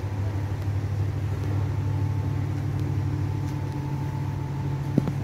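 A steady low machine hum with a few constant tones, and a single sharp click near the end.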